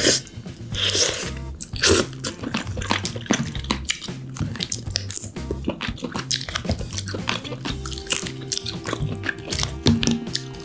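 Steamed king crab shell cracking and crunching as it is pulled apart by hand and the meat is bitten and chewed. Background music with a repeating bass line plays underneath.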